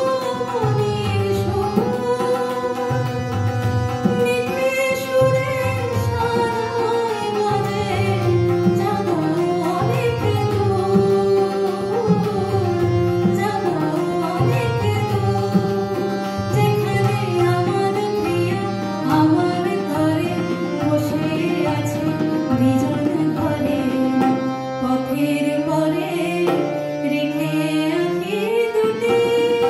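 A woman singing a Bengali song to harmonium accompaniment, with tabla keeping a steady rhythm underneath.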